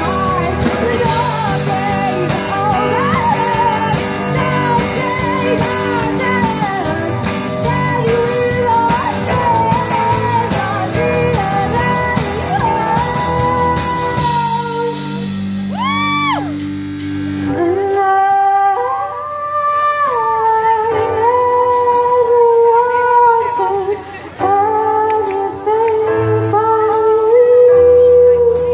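Live rock band playing, with a girl singing lead over electric guitars, bass, drums and keyboard. About halfway through the drums drop out and the band thins, leaving the voice over lighter accompaniment.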